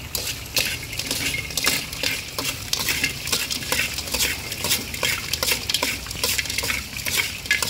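Metal spatula scraping and knocking against an aluminium wok as pieces of fried snake meat are tossed with ground pepper and garlic oil, in quick irregular strokes.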